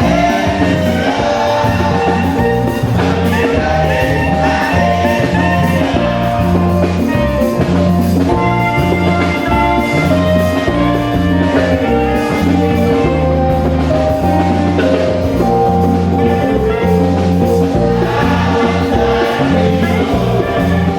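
Gospel music with group singing over a loud, steady bass line and drums.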